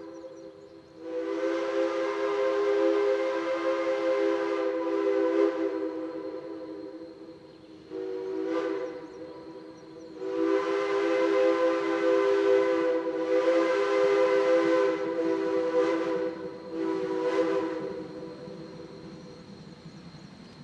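Steam locomotive's chime whistle sounding a chord of several notes in repeated blasts: a long blast, a short one, another long one and a short one.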